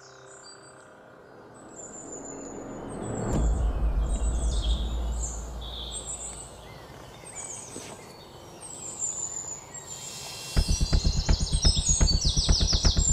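Birds chirping and calling throughout, under a low rumbling drone that swells in about three seconds in and slowly fades. Near the end a fast, even pulsing low beat of horror film score starts and becomes the loudest sound.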